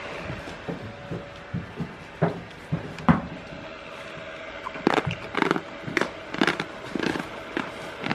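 Goats moving and nibbling right at the camera: a string of irregular knocks, clicks and scuffs. They are sparse at first and come thick and loud for the last three seconds.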